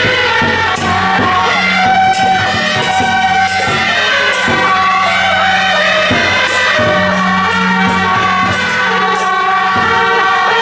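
Loud music: several sustained melodic lines over a steady low drone, with scattered sharp percussive strikes.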